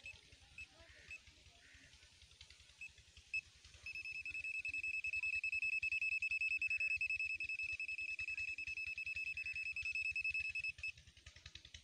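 ANENG SZ08 multimeter in non-contact voltage (NCV) mode beeping as it senses voltage on a live cable. At first it gives a few short, scattered high beeps. About four seconds in it switches to a fast, near-continuous beeping, which cuts off suddenly a little before the end.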